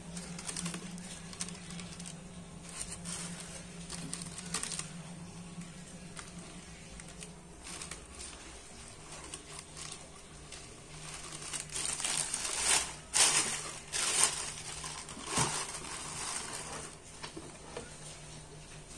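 Tissue paper rustling and crinkling as the shoes are handled over the box. There is a louder flurry of rustles about two-thirds of the way in.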